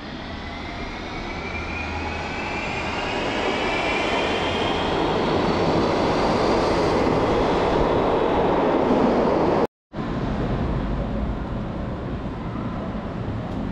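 Electric train pulling away. Its traction motors give a rising whine of several tones that climbs in pitch over several seconds while the running noise grows louder. About ten seconds in, the sound breaks off suddenly and a steadier, lower rumble follows.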